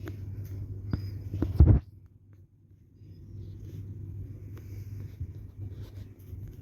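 Harbor Breeze Centerville ceiling fan's motor humming steadily, with scattered clicks and one loud thump a little under two seconds in. The hum falls away for about a second after the thump, then returns.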